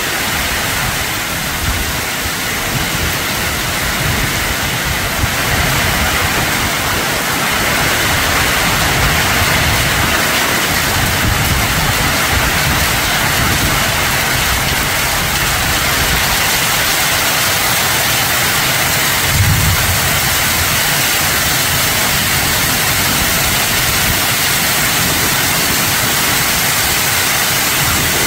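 Hailstorm: heavy rain and hailstones pelting down in a dense, steady rush, with one brief low thump about two-thirds of the way through.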